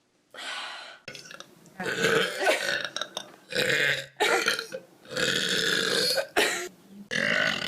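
A run of loud, drawn-out human burps, about five in a row with short breaks between them.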